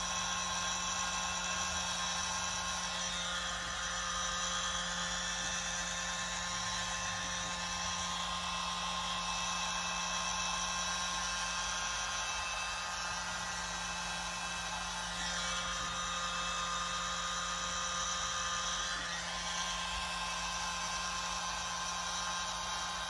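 Small hand-held electric mini blower running steadily with a motor whine, pushing air through a thin metal nozzle over wet acrylic paint.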